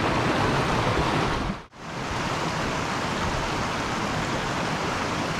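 Mountain stream rushing over rocks: a steady wash of running water. It cuts out for a moment about one and a half seconds in, then comes back just the same.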